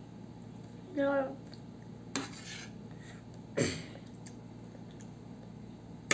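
A metal spoon clinking and scraping against a plate three times while scooping food, the second clink the loudest.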